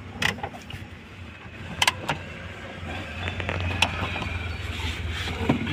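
Scattered sharp clicks and knocks from plastic dashboard trim and wiring being handled inside a car, over a steady low hum.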